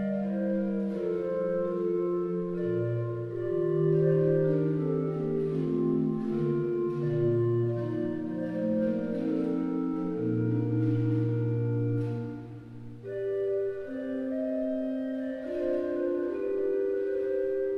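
1714 Boizard pipe organ playing a baroque air in several voices of held notes, tuned in meantone temperament at the low pitch a=392 Hz. The music dips briefly between phrases about two-thirds of the way through.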